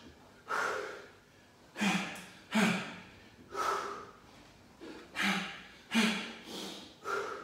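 A man's short, forceful exhalations and grunts in time with crunch-to-punch reps, about eight in all, several coming in quick pairs with each double punch.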